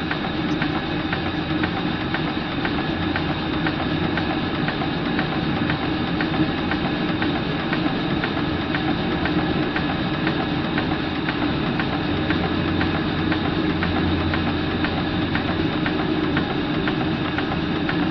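Very early, unknown-builder horizontal steam engine running steadily and lightly on live steam at about 20 PSI, with a regular clicking rhythm over a steady hum.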